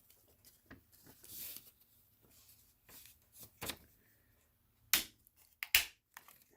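Small clicks and rustles of hands handling a plastic garage door remote and its thin wire, with two sharper clicks about five and six seconds in.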